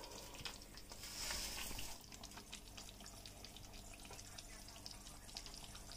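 Faint sizzling and bubbling from a pot of chicken korma cooking on the stove, with light ticks, swelling to a louder hiss about a second in.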